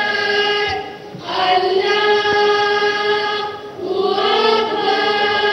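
A choir of voices singing long, held notes together, moving to a new note about a second in and again near four seconds in.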